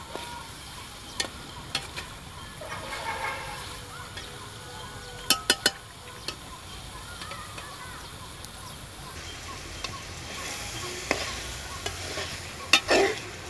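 Meat curry frying in an aluminium karahi, sizzling steadily while a metal spatula scrapes and knocks against the pan as it is stirred. There are three quick knocks about five and a half seconds in and a louder clatter near the end.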